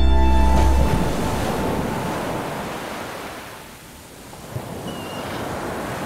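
A low music drone ends under a second in, leaving ocean surf washing against rocks: the wash fades down over a few seconds, then swells again.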